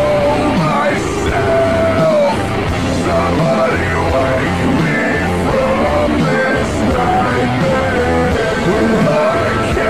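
Loud hard rock music playing steadily, with a dense band mix and a bending melodic line on top.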